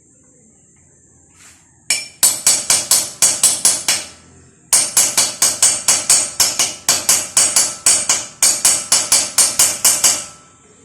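A hammer striking a steel socket again and again, about five blows a second in two runs, driving a 19 mm socket onto a lug nut. Each blow gives a short metallic ring. The lug nut's chrome cover has swollen, so the socket won't slip on by hand.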